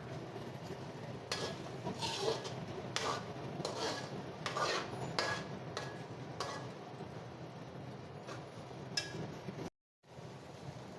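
Spoon stirring okra in a cooking pan: irregular clinks and scrapes of utensil against pan over a steady low hum. The sound cuts out completely for a moment near the end.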